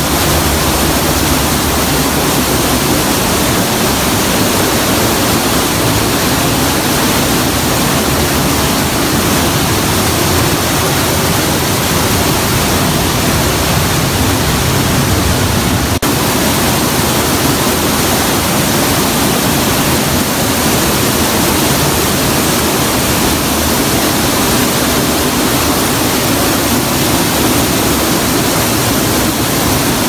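Loud, steady rush of flowing water that does not change.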